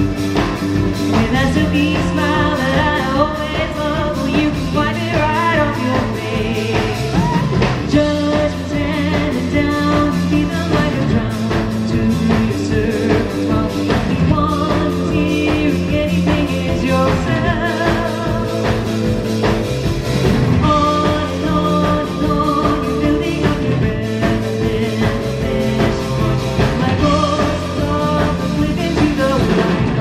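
A live rock band plays with a steady drum beat, electric guitar, bass guitar and cello, and a voice sings over them.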